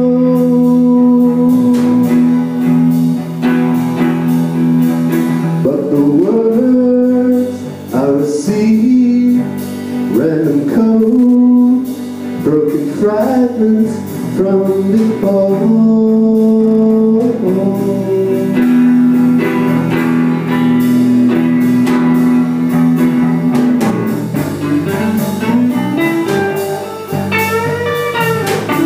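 A live band playing: electric guitar over drums and keyboard, with long held notes and a man singing at the mic.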